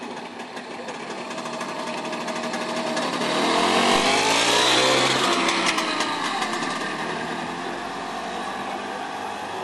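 Single-cylinder two-stroke engine of an IWL motor scooter riding past close by with a rapid buzzing exhaust, growing louder to its peak about four to five seconds in as it passes, then fading as it rides away.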